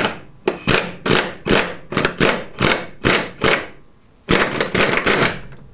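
KS Tools 'Monster' pneumatic impact wrench undoing an engine mount through-bolt, triggered in short repeated bursts, about two or three a second, then run in one longer burst of about a second near the end.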